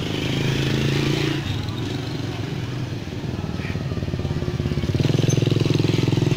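A motorcycle engine running, a steady low pulsing hum that gets louder about five seconds in.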